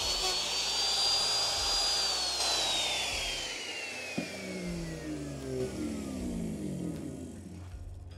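Handheld router running at full speed with a high whine, then switched off about two seconds in and spinning down, its pitch falling steadily for several seconds.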